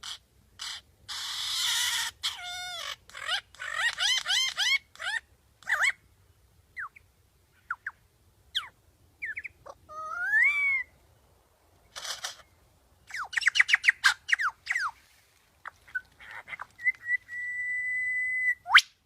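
A bird singing a varied song of whistled notes: quick warbled trills, rising and falling slurs, and a fast run of repeated notes, ending in a long steady whistle just before a sharp rising note.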